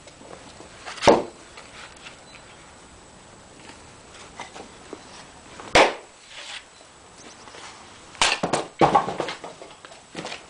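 Axe blows on a black locust round on a chopping block: two sharp strikes about five seconds apart, the second splitting it. Near the end comes a quick run of wooden knocks and clatter as the split pieces are moved and a fresh round is set on the block.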